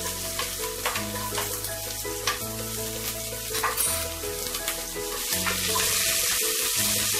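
Chopped onion sizzling as it fries in hot oil with whole spices in a pressure-cooker pot, stirred with occasional clicks of the utensil against the pot. The sizzle grows louder after about five seconds. Soft background music plays underneath.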